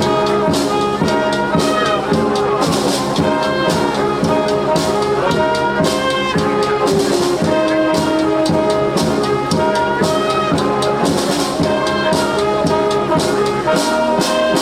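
School wind band playing, with brass carrying the melody over a steady percussion beat.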